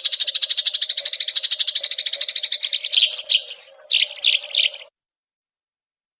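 A bird calling in a fast, even run of high chirps that breaks into a few separate sharper calls and one short whistle, then cuts off suddenly about five seconds in.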